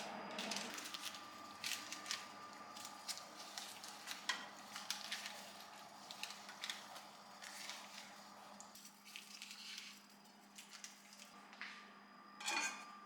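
Light household handling sounds: a string of soft clicks, taps and rubbing noises, with a brief swish near the end and a faint steady hum underneath.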